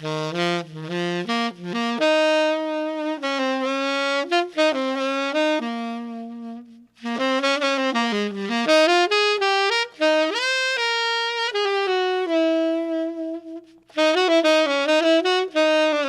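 Unaccompanied tenor saxophone playing a melodic line in three phrases, with short breaths about 7 and 14 seconds in and a note bent upward near the middle.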